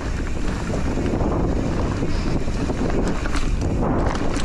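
Wind buffeting an action camera's microphone during a mountain bike ride down a trail, over a steady tyre rumble, with scattered clicks and rattles from the bike.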